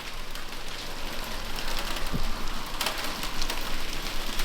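Rain mixed with ice hail pattering steadily, with many small sharp ticks scattered through the hiss.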